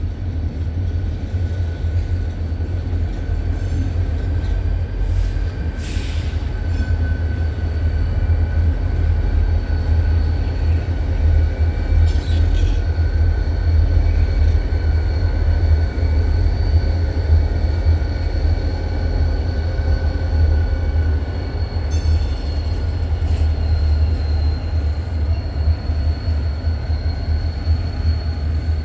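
EMD diesel locomotives in a multi-unit lash-up run past with a heavy, steady low engine rumble. A thin, steady high whine sits above the rumble, and a few brief clicks and clanks come through.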